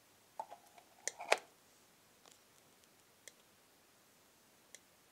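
A few knocks as the AC adapter's plug goes into the wall socket in the first second and a half. Then the unloaded ReadyMate AC adapter gives single faint clicks about once a second or less, at irregular spacing, even though its output voltage measures correct.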